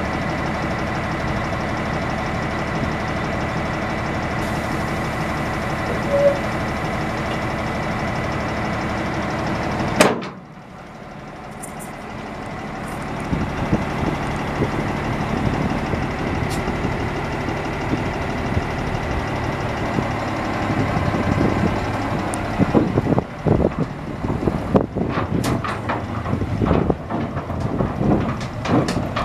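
1991 Ford L8000 dump truck's 7.8-litre inline-six diesel running steadily. About ten seconds in, a sharp click is followed by a sudden drop in the sound, which then builds back up. A run of knocks and clatters fills the last several seconds.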